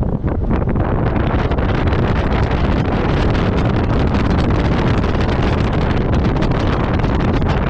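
Off-road vehicle driving over a rough, stony gravel track: a steady rumble of engine and tyres with constant small rattles and clicks of stones, and wind buffeting the microphone.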